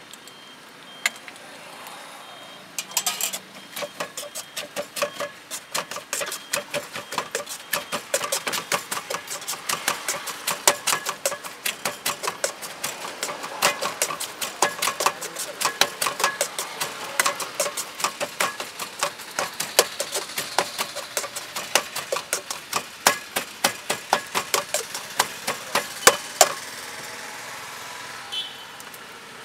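Metal utensils rapidly knocking and scraping in a wok as eggs are stirred and chopped through, several knocks a second over a steady hiss. The knocking starts about three seconds in and stops a few seconds before the end.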